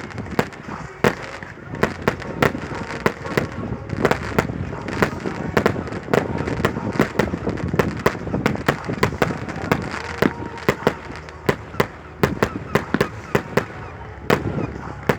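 Fireworks going off in a continuous, irregular barrage of sharp bangs and cracks, several a second.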